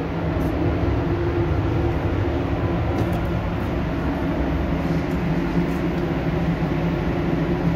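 Spray paint booth's ventilation fans running: a steady rushing hum with a low droning tone underneath.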